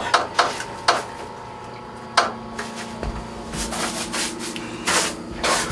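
Elevator running: a few clicks and rustles, then about two seconds in a steady hum starts, with a low thump a second later, as the car gets under way.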